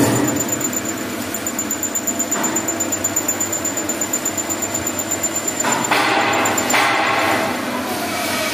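Lathe turning a steel mixer shaft, the cutting tool working the metal under flowing coolant: a steady machining noise with a regular pulse of about four beats a second, turning louder and harsher about six to seven and a half seconds in.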